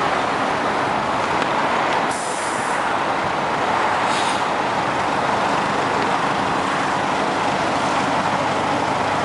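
LiAZ-4292 city bus standing at a stop with its engine running steadily amid traffic noise. Two bursts of compressed-air hiss, about two and four seconds in, come as its pneumatic doors shut.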